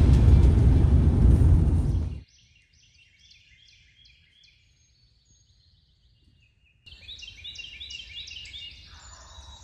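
A loud, low rushing noise that cuts off suddenly about two seconds in, then songbirds singing in the morning woods: scattered chirps at first, swelling into a fuller chorus of many birds about seven seconds in.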